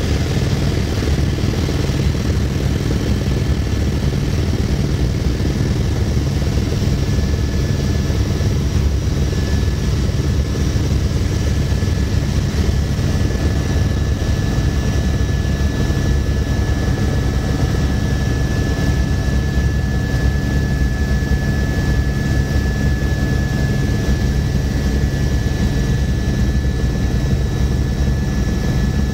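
Helicopter in flight heard from inside the cabin: steady, loud rotor and engine noise with a thin high whine running through it.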